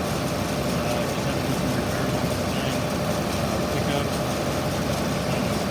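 A tractor engine idling steadily under a heavy, even hiss of noise.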